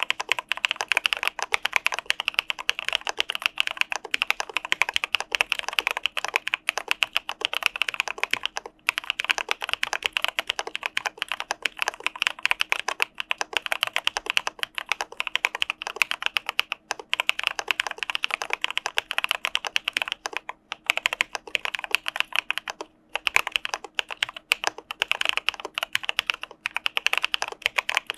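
Fast, continuous typing on an Arisu Alice-layout ergonomic mechanical keyboard fitted with Cà Phê Sữa Đá (CPSD) linear switches, a dense run of keystroke clacks. There are a few brief pauses, about 9, 21 and 23 seconds in.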